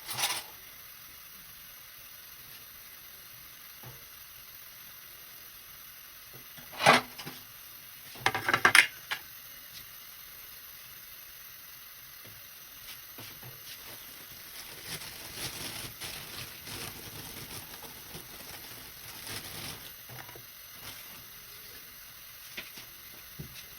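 Dishes and utensils being handled in a kitchen: a clatter at the start, a loud clink about seven seconds in, a quick run of louder clatters a second later, then lighter, busier rattling and clinking through the middle stretch.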